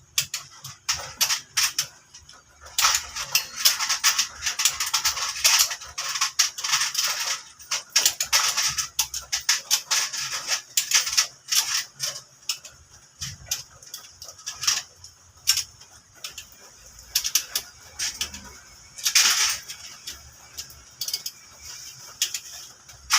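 Bursts of rapid metallic clicking and clatter from hand tools being worked on an engine.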